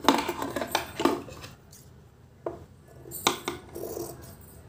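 Cotton cloth rustling as it is handled and smoothed on the table, then large steel tailor's shears clicking and cutting into the cloth. Sharp clicks come about two and a half and three and a half seconds in.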